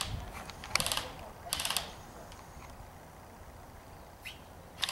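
Airsoft gun firing two short rapid bursts, about a second in and again half a second later, each a fast run of mechanical clicks.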